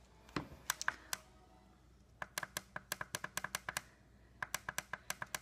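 Volume control of a Pakway Bluetooth speaker clicking as it is worked: a few scattered clicks, then two quick runs of sharp clicks.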